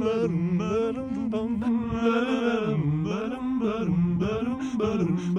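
A lone unaccompanied voice singing a slow cowboy lullaby melody, holding long notes with no clear words.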